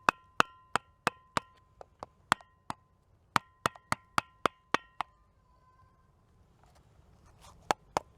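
Batoning: a baton striking the spine of a cheap multi-tool's knife blade to drive it through wood. It goes in a quick run of knocks, about three a second, each with a short metallic ring. The knocks stop about five seconds in, then two more come near the end.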